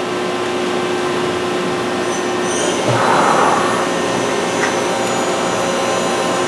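Excel vertical machining center running a program: a steady whir of the spindle and axis drives with a constant whine, and a brief rushing hiss about three seconds in.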